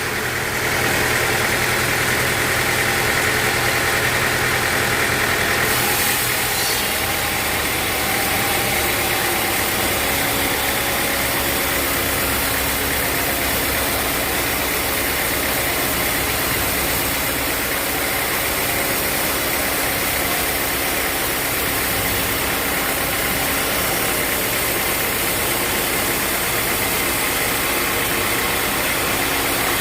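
Sawmill machinery running steadily, a continuous engine-like drone with steady tones, changing character about six seconds in.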